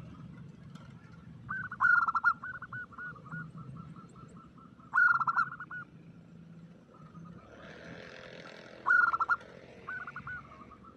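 Zebra dove (perkutut) cooing: about four phrases, each a loud burst of coos followed by a quick run of shorter, softer notes.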